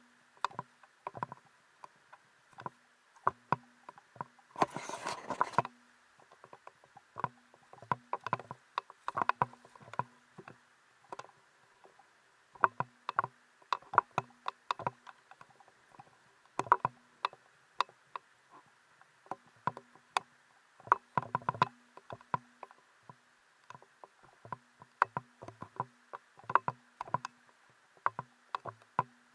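Footsteps over the stones of a shallow rocky stream: irregular sharp clicks and knocks of shoes on rock and loose stones knocking together, with a brief rush of noise about five seconds in.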